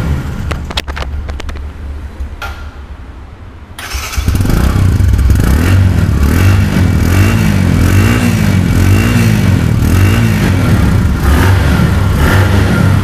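Bajaj Discover 110's single-cylinder four-stroke engine running, heard close at the silencer. About four seconds in it grows suddenly louder, then the throttle is blipped again and again, about once a second, each rev rising and falling. It runs cleanly with no bad noise, which the seller calls showroom-condition sound.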